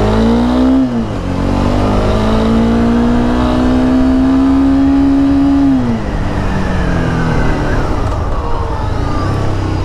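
Honda CBR300R's single-cylinder engine under way, pulling up through the revs. The pitch drops sharply at a gear change about a second in, then climbs steadily for several seconds. About six seconds in it falls off as the throttle closes and the bike slows.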